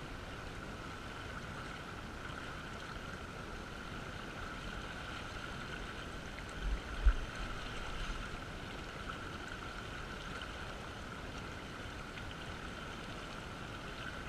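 Shallow river current rushing steadily around a wading angler, with one brief low thump about seven seconds in.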